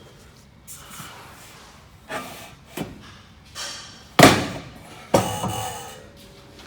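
A run of knocks and thumps from a hollow metal door frame being handled and tapped into place, about half a dozen irregular hits; the loudest comes about four seconds in and the next, a second later, leaves a short metallic ring.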